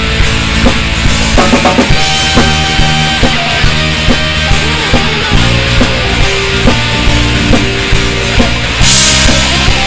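Loud rock band music: a drum kit keeps a steady beat under held chords, with a cymbal crash about nine seconds in.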